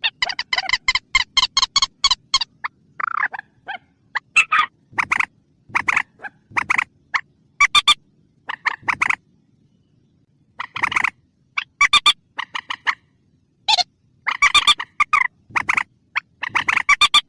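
Mandar (rail) call from a hunting lure recording: rapid series of short, harsh notes in bursts with short pauses between them, and a longer pause a little past halfway.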